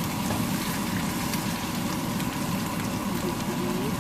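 Ground beef sizzling steadily as it browns in a frying pan.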